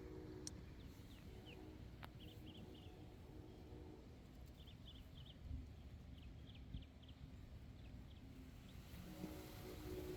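Faint outdoor background: a steady low rumble with a couple of soft clicks and several clusters of short, faint high chirps.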